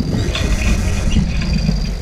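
Wind buffeting the microphone of a sailboat under way in a fresh breeze, a steady low rumble, with a few faint clicks from the boat.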